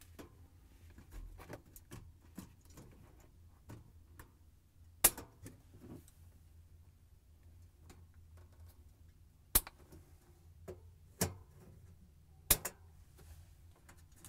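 Side cutters snipping plastic zip ties off a refrigerator's wire harness: a few sharp, separate clicks, the loudest about five, nine and a half, eleven and twelve and a half seconds in, with small handling ticks between, over a faint low hum.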